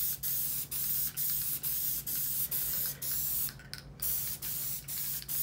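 Aerosol can of Craft Bond spray adhesive hissing in short spurts, about two a second, with a slightly longer pause a little past halfway.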